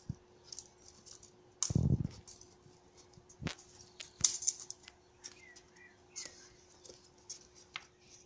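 Scattered sharp clicks and light knocks of wooden boards being handled and shifted by hand, with a loud muffled low bump about two seconds in.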